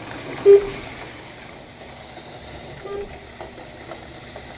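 Stock T-Jet HO slot cars running laps on a plastic track, a steady rattling hiss. A short beep sounds about half a second in and a fainter one near three seconds.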